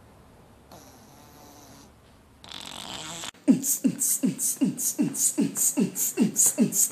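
A cat snoring, two soft breaths through its open mouth. Then, from about three seconds in, a quick, even run of short sounds that each drop in pitch, about four a second.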